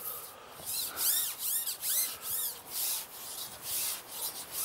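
Carbon fishing pole sliding out over a pole roller: a quick run of rubbing strokes, about two or three a second, as the sections run across the roller.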